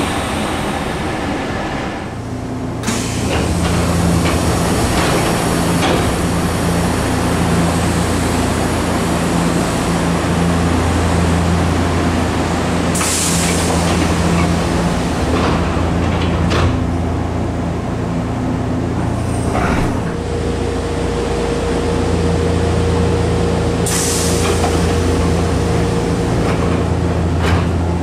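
Air-operated passenger doors of a Sanyo Electric Railway 3050-series commuter car: a hiss of air about halfway through as they open, and another hiss later as they close. Under both runs the car's steady electrical hum, and near the end a steady high tone sounds for several seconds.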